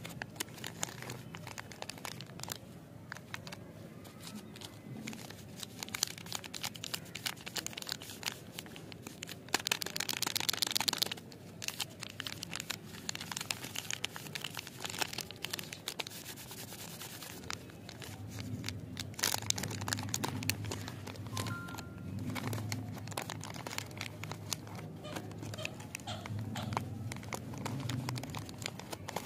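Hands crinkling and tearing open plastic chocolate-bar wrappers, with scattered crackles throughout and a dense stretch of tearing about ten seconds in.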